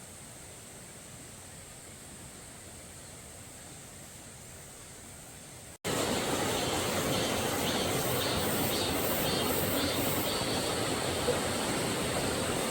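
Steady rushing of river water: a faint hiss for about six seconds, then an abrupt cut to much louder, fuller rushing. Over the louder part a faint high chirping repeats about twice a second.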